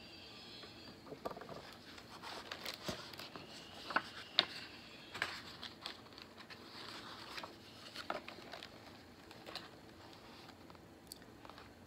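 Faint rustling and scattered soft taps of a picture book's paper pages being handled and turned.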